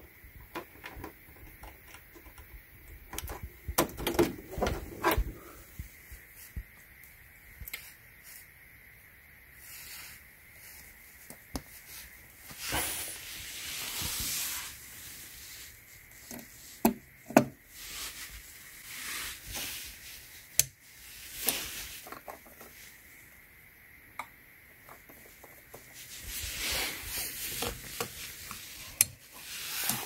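Handling sounds of a 3.5 mm audio cable being plugged into jacks: scattered clicks and knocks, with rustling and a few brief hissing rubs.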